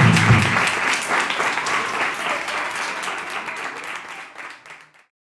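Small audience applauding as the music stops about half a second in, the clapping dying away and cutting off just before the end.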